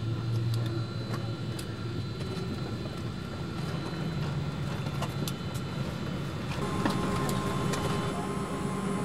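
Steady cabin noise of a parked Boeing 777-200 airliner, heard from a window seat, with scattered faint clicks; a steady higher tone joins about seven seconds in.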